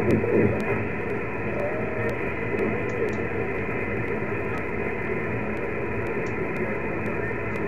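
Receive audio from an amateur radio transceiver on the 17-metre band: a steady hiss of band noise, with a weak voice from a distant single-sideband station faintly audible underneath, the signal fading in and out.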